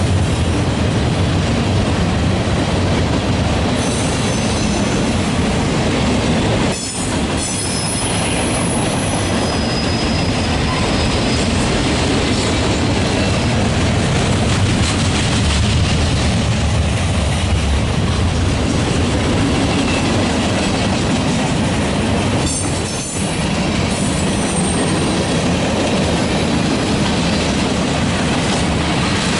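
Freight train cars rolling past on the rails, with steel wheel flanges squealing at times over the steady rumble and clatter. The noise drops briefly twice, about a third of the way in and again near the end.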